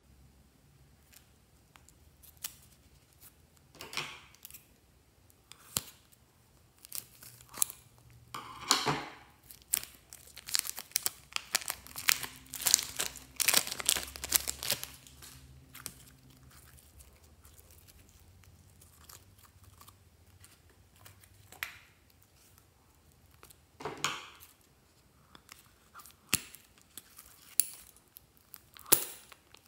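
Clear plastic film crinkling and tearing as it is unwrapped and crumpled by hand, in irregular rustling bursts that are densest in the middle. Near the end, a sharp snip of scissors.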